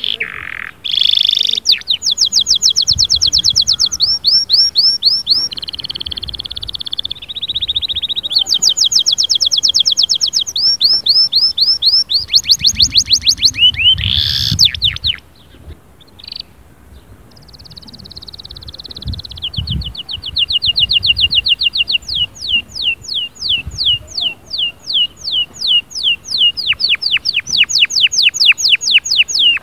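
Domestic canary singing: long, fast trills of rapidly repeated high chirping notes, one roll after another, with a short quieter lull about halfway through before the rapid trills start again.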